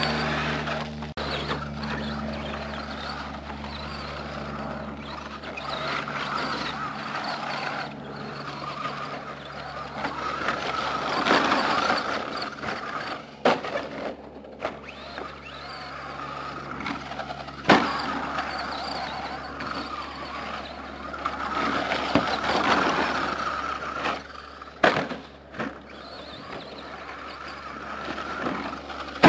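Electric motor and gears of a radio-controlled short course truck, a Team Associated SC10 with a Kyosho Le Mans 240ST brushed motor, whining up and down with the throttle. A few sharp knocks come in the second half.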